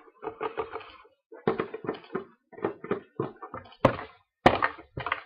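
Handling noise: a busy run of short taps, knocks and rustles. The sharpest knocks come near the end, likely as the box is handled to get a card out of it.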